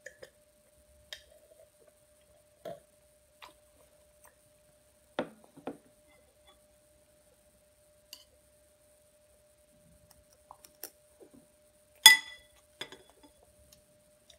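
A metal spoon clinking against a ceramic bowl in scattered soft taps, with one sharp ringing clink near the end as the loudest sound. A faint steady hum runs underneath.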